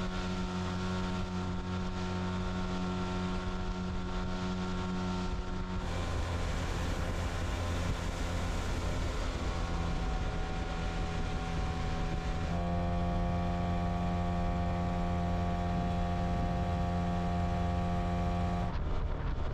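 Outboard motor running at a steady speed, driving a boat along under way. The engine note holds steady but shifts in pitch abruptly about six seconds in, again about twelve seconds in, and once more near the end.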